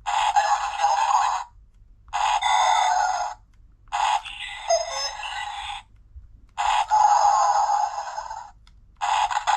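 Electronic toy remote control playing a series of short sound clips through its tiny, tinny speaker, one after another with brief gaps between them.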